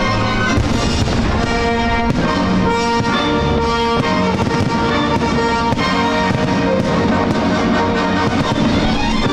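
Orchestral music with brass, over repeated bangs of aerial firework shells bursting.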